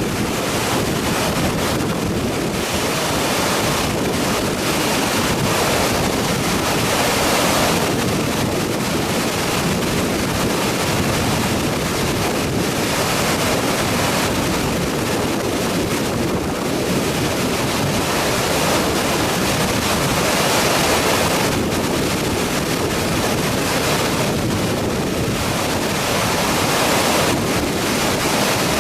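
Waterfall rushing: a loud, steady roar of falling water with slight swells.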